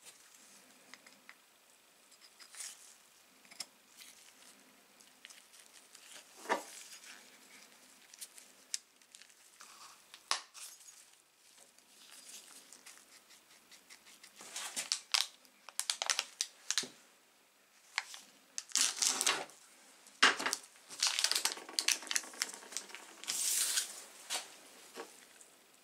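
Light metallic clicks, taps and rubbing from gloved hands handling the angle grinder's aluminium gear housing and its ball bearing, with the rustle of nitrile gloves. The noises come in irregular clusters and are busier and louder in the second half.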